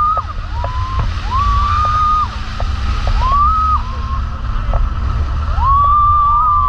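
Banana boat riders screaming in long, high held cries, about four in a row with short gaps, over steady rumbling wind and water spray noise from the towed ride at speed.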